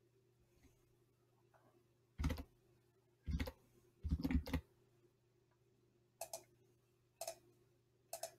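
About six computer mouse clicks roughly a second apart. The first three are heavier and duller, with a thud, and the third runs as a short cluster. The last three are lighter and sharper. A faint steady electrical hum runs underneath.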